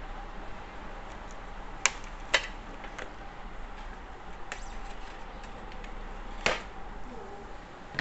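Cardboard packaging being opened and handled by hand inside a microwave oven: a few sharp snaps and clicks of the flaps and contents, two close together about two seconds in and another loud one about six and a half seconds in, over a faint steady hum.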